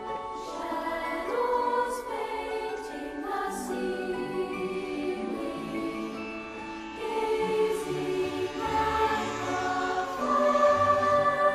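Background music with singing voices over held chords.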